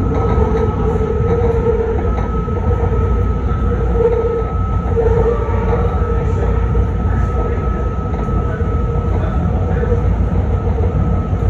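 BART Fleet of the Future train running along the track, heard from inside the front cab: a steady low rumble with two steady high tones over it.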